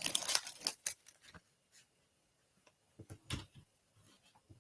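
Crinkling and rustling of a plastic craft-supply packet being handled, in quick bursts for about the first second and a half, followed by a few soft knocks as items are set down.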